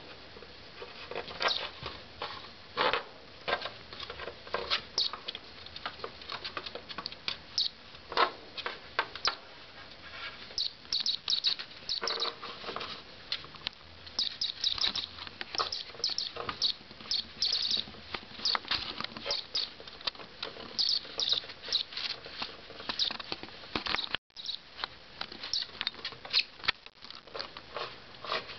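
Young ferret–polecat kit playing with toys: an irregular patter of light scuffles, scratches and small knocks, with quick clusters of brief high-pitched sounds.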